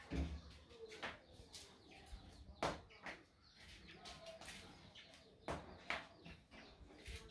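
A few short chirps from a caged songbird, among scattered knocks and thumps of someone moving about the room.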